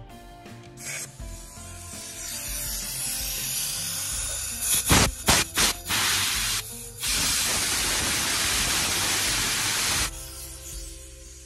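Pressurised spray hissing into the glow plug well of a Mercedes diesel engine: a hiss that builds over the first few seconds, several quick sharp blasts about halfway through, then one long steady blast of about three seconds that cuts off suddenly.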